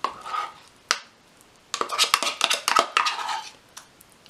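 A spoon scraping mashed avocado out of a plastic measuring cup into a glass bowl, with clicks and clinks against the cup and bowl. There is a tap at the start and another just before a second in, then a busy stretch of scraping and clinking from about two to three and a half seconds in.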